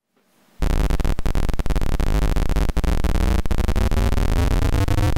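Digital noise from a 4006 shift-register pseudo-random noise module in a DIY modular synthesizer: a loud, buzzy hiss that starts suddenly about half a second in and has a few brief gaps. Toward the end its repeating shift-register pattern can be heard rising in pitch.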